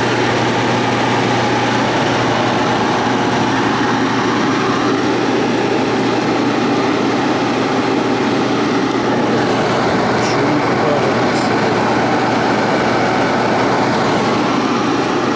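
Matco NJ21200 1,200 CFM floor blower running steadily on a lower speed setting: a constant rush of air over a low, steady motor hum.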